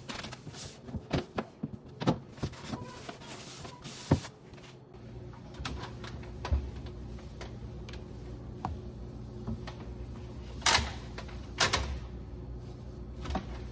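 Scattered clicks and knocks of objects being handled while a fridge is cleaned, with two louder knocks near the end. A low steady hum sets in about five seconds in.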